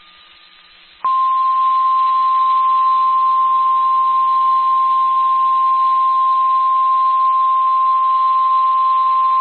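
Emergency alert attention tone: a single steady, loud beep just above 1 kHz, the NOAA Weather Radio 1050 Hz warning alarm. It starts sharply about a second in after faint hiss and holds without a break, signalling that a warning message follows, here a flash flood warning.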